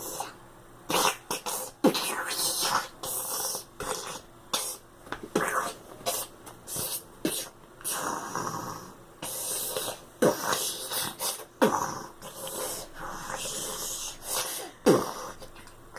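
A three-year-old boy making sound effects with his mouth: a long run of short hisses, spitty clicks and whooshing blasts, with a few quick falling swoops, starting about a second in.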